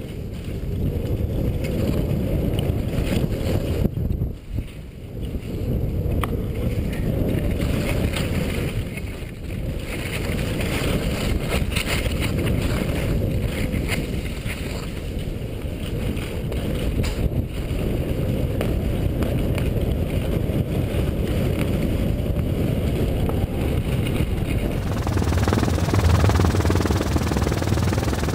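Wind rumbling and buffeting across the microphone of a point-of-view camera on a skier's fast downhill run. It is a loud, steady rush with a few brief gusts and dips. Near the end it changes to a brighter, more even noise.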